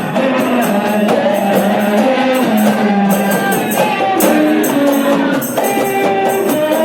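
Music: a melody over a steady beat with jingling, tambourine-like percussion.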